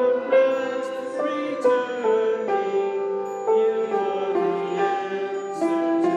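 Slow instrumental music: a melody of held notes that change about every half second to a second.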